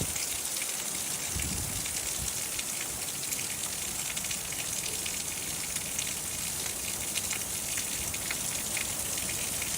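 Heavy rain falling steadily in a violent thunderstorm, a dense, even hiss, with a low thud about a second and a half in.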